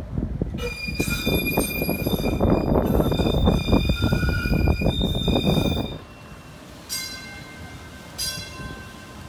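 Battery-electric tram running on curved rail: wheels squealing with steady high tones over a heavy rumble. The noise drops off about six seconds in, and a ringing signal then strikes about every second and a quarter.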